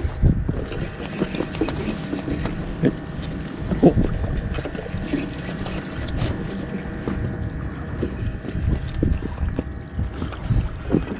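Sounds aboard a fishing boat at sea: a steady noisy rumble with a faint steady hum, broken by irregular knocks and thuds throughout.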